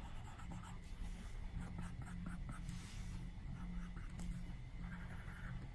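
Faint stylus tip tapping and stroking on an iPad's glass screen, with light ticks and soft scratching, over a steady low hum.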